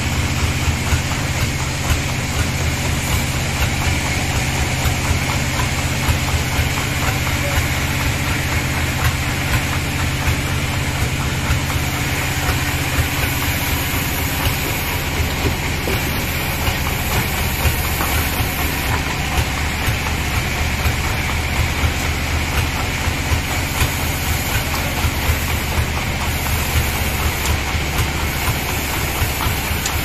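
Sawmill machinery running steadily: a continuous low engine hum, idling while logs are loaded rather than cutting.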